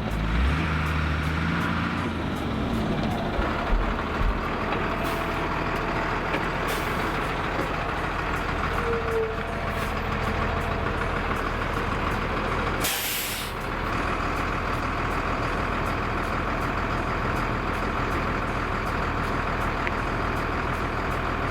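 Fire truck's diesel engine running steadily, with one short loud hiss of air about two-thirds of the way through.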